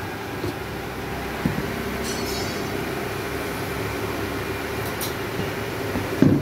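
Steady machine hum, with a soft knock about a second and a half in, a faint rattle of chain links around two seconds, and a louder knock near the end as a chain-wrapped steering wheel is handled on a carpeted tabletop.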